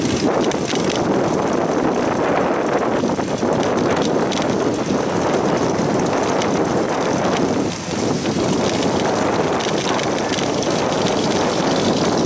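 Steady wind rush on the microphone of a camera riding on a moving bicycle, mixed with bicycle tyres running on pavement. It dips briefly about eight seconds in.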